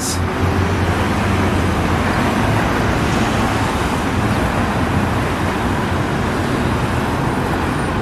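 Steady road traffic noise from cars passing on a multi-lane city street.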